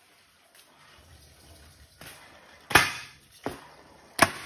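Stunt scooter rolling on a concrete floor, then sharp clacks of the deck and wheels hitting the concrete as the rider whips the deck around and lands back on it: two loud impacts about a second and a half apart, with a lighter knock between them.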